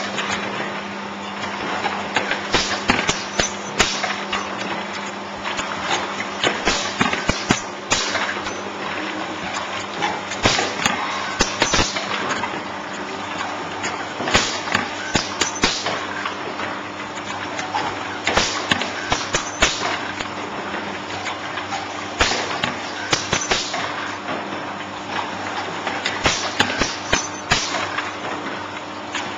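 Automatic gluing machine for corrugated boxes with crash-lock bottoms, running: a steady machine hum with frequent irregular clacks and knocks as cardboard blanks are fed through.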